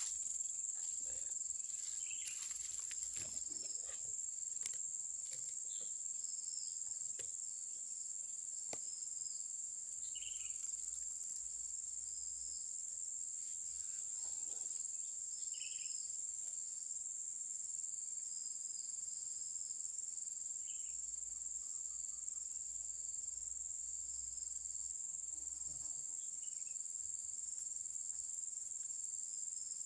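Steady high-pitched chorus of insects, shrilling without a break. A few faint short chirps come through now and then.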